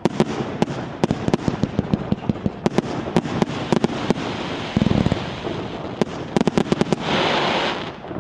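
Fireworks display going off: rapid volleys of sharp cracks and bangs, a deeper boom about five seconds in, then a loud crackling hiss about seven seconds in.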